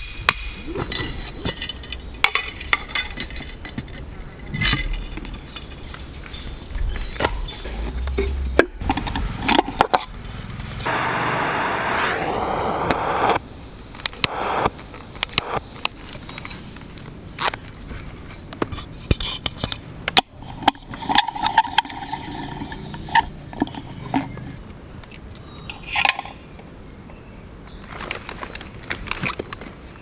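Camp gear being set up by hand: a series of sharp knocks and clinks, among them a hatchet striking the top of a metal stake to drive it into the ground. A steady hiss lasts a couple of seconds near the middle.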